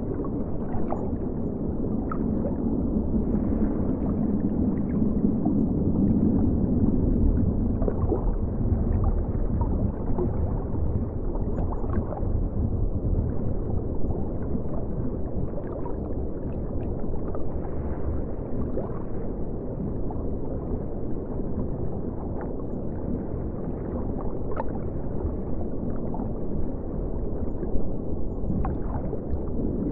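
River water heard through a camera submerged in the river: a steady muffled rumble, with faint clicks and gurgles now and then.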